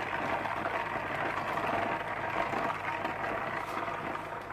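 Hand-turned ice cream maker being cranked steadily, its ice and salt churning around the freezing canister with a continuous grinding rattle.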